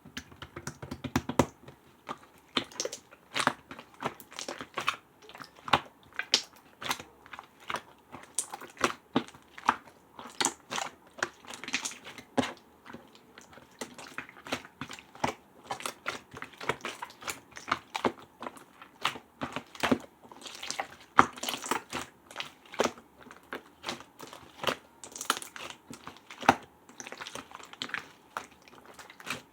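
Slime being pressed, kneaded and poked by hand, giving an irregular run of sharp clicks and crackling pops, several a second.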